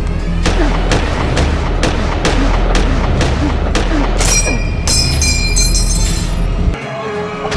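Loud war-film battle soundtrack: a dramatic score with a deep low rumble and evenly spaced heavy hits a little over twice a second, mixed with booms and rifle gunfire. The low rumble cuts off near the end, leaving lighter tonal music.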